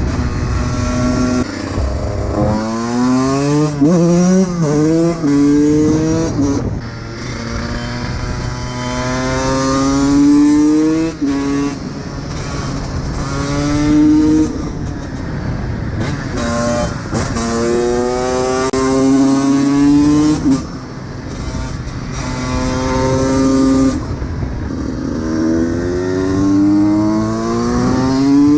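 Honda CR125 two-stroke single-cylinder engine accelerating, its pitch climbing in long sweeps and dropping sharply every few seconds as it is shifted up through the gears. A few seconds in there is a short burst of quick up-and-down revs.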